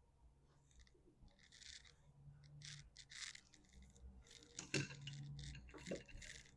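Faint scraping and rubbing of small launcher parts being handled and fitted during reassembly of a Beeman BP.50, with a few light clicks near the end.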